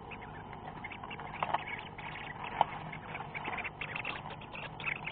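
Common swifts moving about inside a nest box: scratchy rustling and scraping of claws and feathers on the nest and box walls, with two sharper knocks about one and a half and two and a half seconds in, the crackling growing busier near the end.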